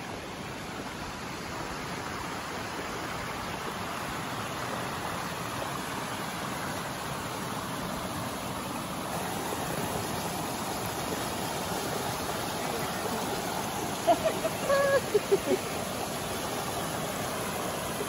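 Creek water rushing over small rocky cascades, a steady rush that grows gradually louder. About fourteen seconds in, a few short, loud pitched sounds cut through it.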